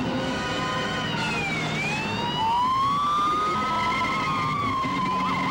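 Police car siren wailing, its pitch sliding slowly up and down, then switching to a fast yelp near the end. Under it is the car's engine and the noise of its tyres skidding through a turn.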